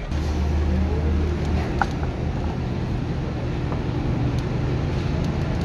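A steady low engine rumble, like a vehicle engine running close by, over a noisy background.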